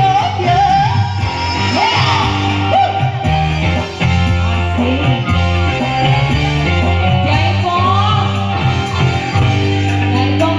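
Live singing through a microphone over amplified band backing music, the sung melody gliding between held notes above a steady bass and chords. The singer's voice is still hoarse from a flu and cough.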